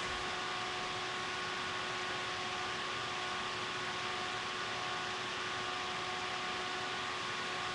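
Steady hiss with a few faint, unchanging tones: the background noise of the recording, with no distinct event.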